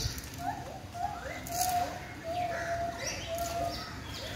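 Birds calling: a steady run of short cooing notes, each sliding up and then holding level, about two a second.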